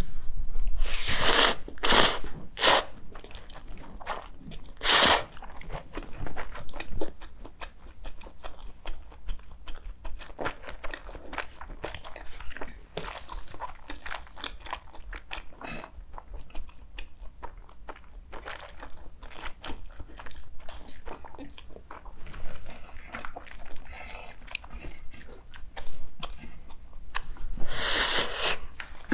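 A person chewing and biting food close to the microphone, with many small wet clicks and a few louder bursts: three in quick succession just after the start, one about five seconds in, and a longer one near the end.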